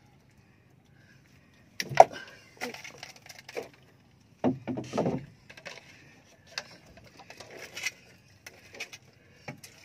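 Knocks and clattering on a wooden boat as the landing net and the catch of fish are handled, with a sharp knock about two seconds in, a cluster of knocks a few seconds later and scattered lighter clicks after.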